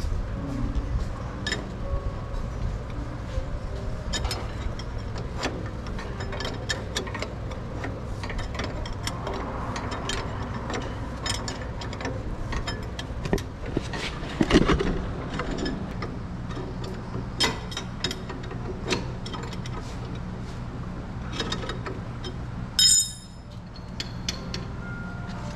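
Scattered clicks and light metallic knocks as a coilover's threaded spring seat is turned by hand to adjust ride height, over a steady low hum, with one louder knock about halfway.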